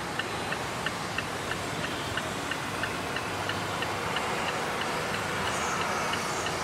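Rapid, even ticking, about three ticks a second, from the 2008 Mazda 3's dashboard, over a steady low hum.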